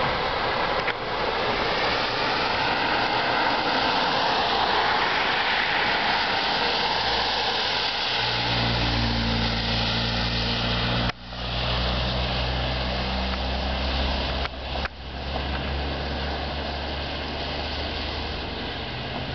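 Road traffic passing on a wet road: tyre hiss and diesel van engines from passing ambulance vans. About eight seconds in, a steady low engine drone starts close by, with two brief sharp dips in level.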